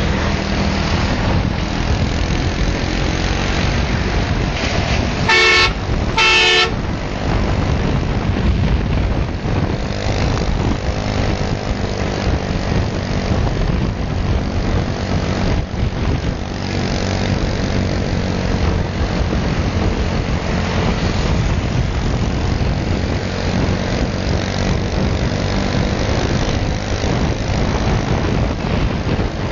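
Steady engine drone and wind rush of a ride through motorcycle traffic, with two short horn toots a second apart about five seconds in.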